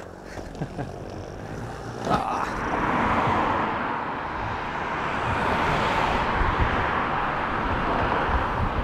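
Hard inline-skate wheels rolling over rough pavement: a sharp knock about two seconds in, then a steady rushing rolling noise.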